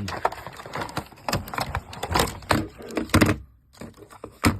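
Handling of a newly unboxed stapler and its packaging: a run of knocks, clicks and rustling, then one sharp click near the end.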